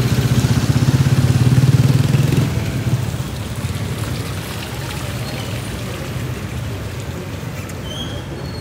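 A motor vehicle engine running close by, loudest in the first two and a half seconds and then settling to a steadier, quieter hum over street traffic noise.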